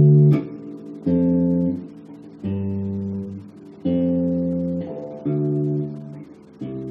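Electric bass guitar playing a pentatonic scale pattern slowly, one plucked note at a time. Each note rings about a second and is damped before the next, about one every second and a half.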